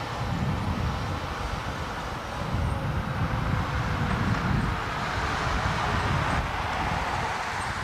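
Docklands Light Railway train running along an elevated viaduct at a distance, with wind buffeting the microphone in low gusts. The running noise swells around the middle.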